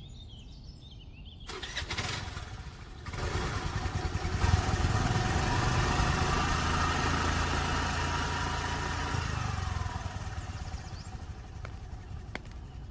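Small motor scooter engine starting, then running steadily for several seconds as the scooter pulls away, fading out near the end.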